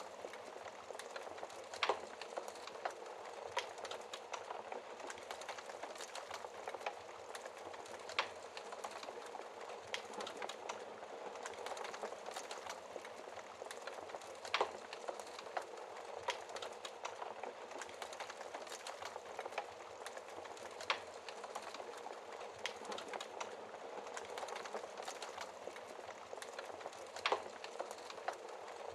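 Wood fire burning in a fireplace: a steady dense crackle of small ticks, with a louder sharp pop about every six seconds, five in all.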